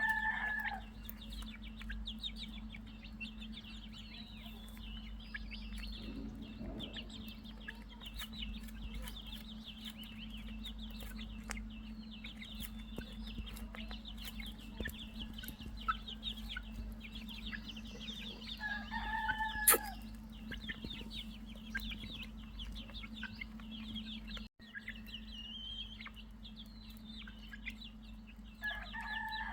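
Chicks peeping in a dense, continuous stream of short high chirps. A lower, longer call from an adult chicken cuts in at the start, about two-thirds of the way through, and again near the end. A steady low hum runs underneath.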